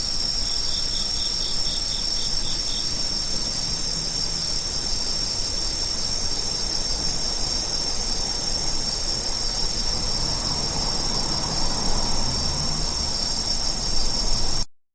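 Insects trilling in a steady, very high-pitched continuous chorus. A second insect chirps in short regular pulses, about four a second, for a couple of seconds near the start. The sound cuts off abruptly near the end.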